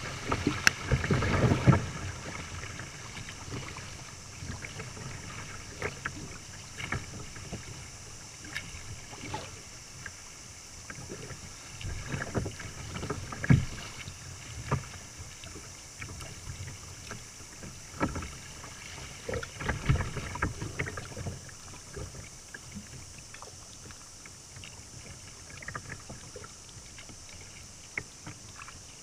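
River water splashing and slapping against a kayak's hull in small rapids. It is loudest in the first couple of seconds, then comes as irregular splashes every second or two over a steady rush of water.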